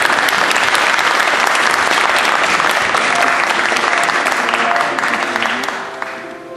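Audience applauding, a dense steady clapping that dies away near the end as music comes in.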